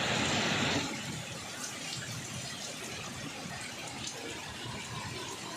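Steady rain falling, with a louder rush for about the first second before it settles to an even, softer hiss with faint scattered drop ticks.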